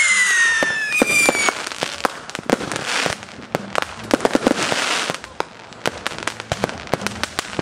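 Fireworks going off: a whistling firework with a falling pitch at the start and a second, higher whistle about a second in, then many sharp bangs and stretches of crackling.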